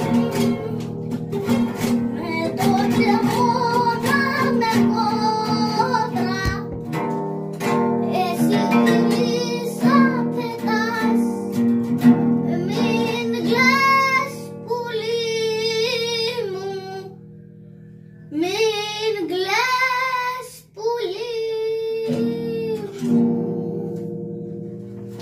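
Greek song with plucked acoustic guitar and a sung vocal line; the music eases down near the end.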